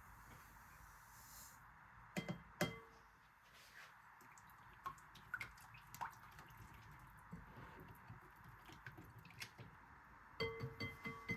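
Kitchenware being handled: quiet clicks and taps, with short ringing clinks about two seconds in and again near the end, over a faint steady hum.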